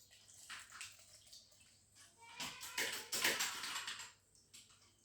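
Onion-and-honey syrup being poured through a strainer, a soft trickle and splash of liquid that grows loudest from about two and a half to four seconds in, then stops.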